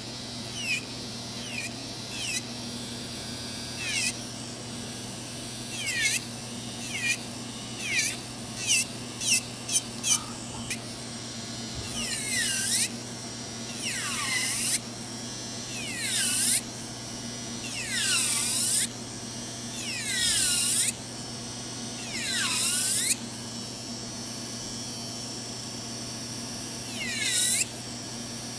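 Electric nail drill with a cylinder bit grinding gel off a fingernail: a steady motor hum under repeated whining strokes, each dipping and rising in pitch. The strokes are short and quick for the first ten seconds, then longer, about one every two seconds, with a pause before a last stroke near the end.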